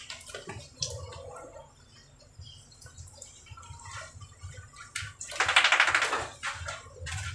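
Scattered light taps and clicks as a small wet dog scampers about and a towel is shaken, with a louder stretch of rapid rustling about five seconds in that lasts about a second.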